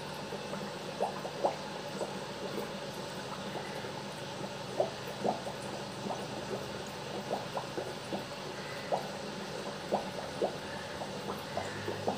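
Aquarium water bubbling and trickling, with short, irregular bubble plops over a steady low hum.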